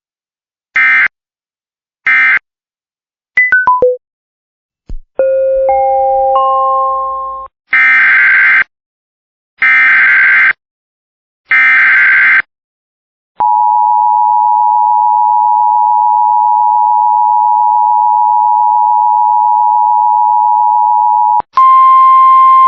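Emergency Alert System tones: three short squawking SAME end-of-message data bursts, a quick four-note falling electronic tone and a three-note rising tone, then three one-second SAME header data bursts. These are followed by the EAS two-tone attention signal, held steady for about eight seconds. Near the end a single loud steady tone over hiss starts.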